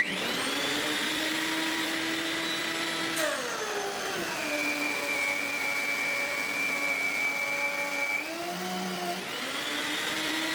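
Benchtop thickness planer with a helical cutter head running, a steady motor whine. About three seconds in, its pitch drops and stays low as a board feeds through and loads the cutter head. About eight seconds in, it climbs back up as the board clears.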